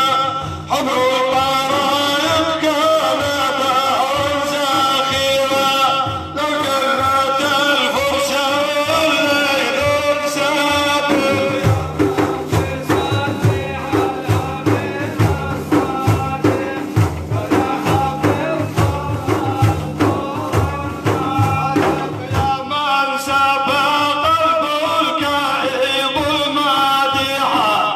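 Middle Eastern praise-song music: a flowing melodic line for about the first eleven seconds, then a stretch carried by steady drum beats from about twelve seconds in, with the melody returning over it near the end.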